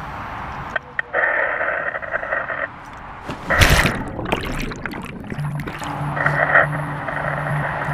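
A scuba diver carrying twin cylinders jumps into a lake: one loud splash a little before halfway, with bursts of bubbling, rushing water before and after it.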